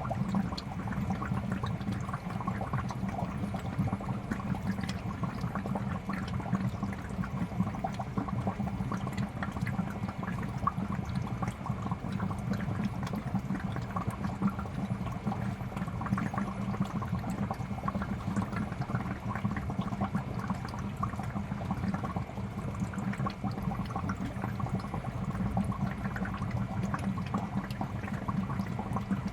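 Fish tank water bubbling steadily: a continuous stream of small bubbles popping and gurgling at the surface, with an even low rumble under it.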